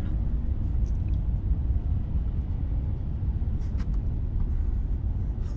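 Steady low rumble of a Mercedes-Benz car driving slowly on a wet road, heard from inside the cabin, with a few faint ticks.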